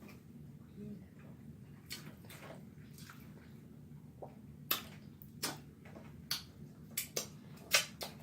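Close-miked chewing and lip smacking: sharp wet clicks at irregular intervals, coming more often in the second half, over a steady low hum.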